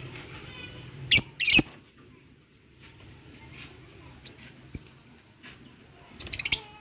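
Lovebirds giving sharp, shrill chirps: two loud ones about a second in, two shorter ones around four seconds, and a quick run of chirps near the end.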